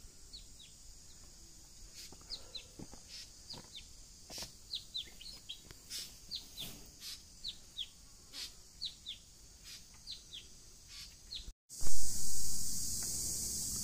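Small birds chirping: many short, high, falling notes, a few each second. About twelve seconds in comes a loud thump, followed by a steady high-pitched insect drone.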